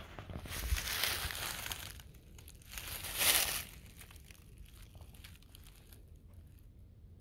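Footsteps crunching and rustling through a thick layer of dry fallen leaves. The rustling is loudest in the first two seconds and in a short burst about three seconds in, then fades to light scattered crackles.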